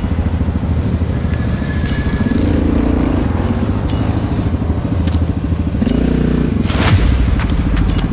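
ATV engine running hard with a steady low pulse, its revs climbing a few times. There are scattered ticks and clatter, and a brief rush of noise about seven seconds in.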